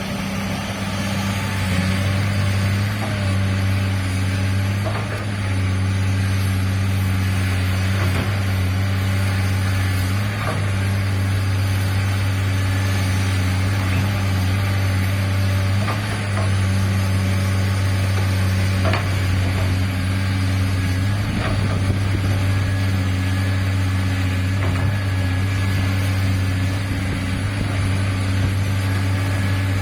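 Komatsu PC200-8 excavator's six-cylinder diesel engine running steadily at working speed, with a few short knocks every few seconds.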